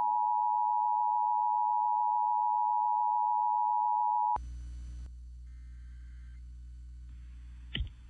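Emergency Alert System attention signal: a steady two-note tone near 900 Hz that cuts off abruptly about four seconds in. After it comes a low steady hum, with a sharp click near the end.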